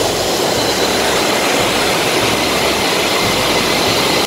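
Mountain stream rushing over rocks and small cascades: a loud, steady rush of water.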